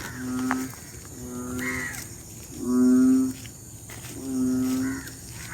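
Frogs giving their rainy-season mating calls: a low-pitched, croaking call about half a second long, repeated about every one and a half seconds, with the calls alternating louder and softer.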